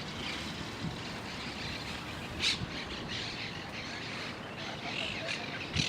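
Parakeets chirping and squawking in short high calls, with one sharp squawk about two and a half seconds in, over a steady background hiss.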